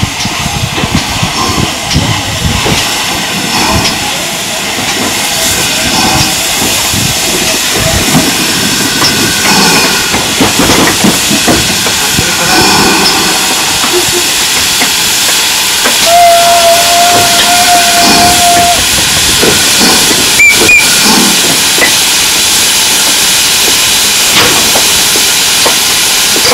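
GWR 4575 class prairie tank locomotive 5526 hissing steam steadily at the platform. Its whistle sounds once for about three seconds, two-thirds of the way through.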